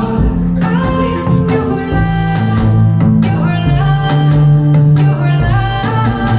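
Recorded music played back through Martin Logan loudspeakers: a song with singing over guitar, a strong bass line and a steady beat.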